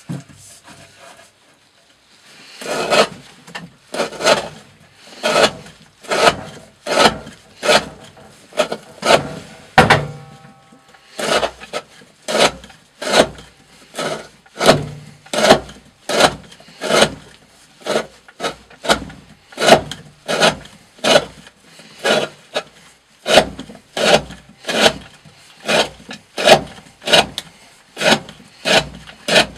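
D2 steel knife blade slicing through thick rope, over and over at a steady pace of roughly one and a half cuts a second, after a short quiet start and with a brief pause about ten seconds in.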